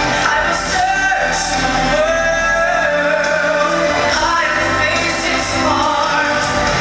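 Male vocalist singing a pop song over full instrumental accompaniment, holding and sliding between notes, during a stage sound check.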